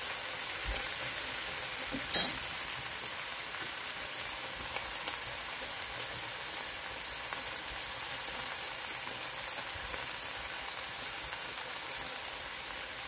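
Diced chicken breast frying in hot oil in a pan: a steady sizzle, with a brief clink of a utensil about two seconds in.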